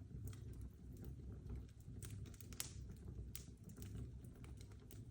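Fire crackling behind a screen: irregular sharp pops and snaps over a low, steady rumble of the flames.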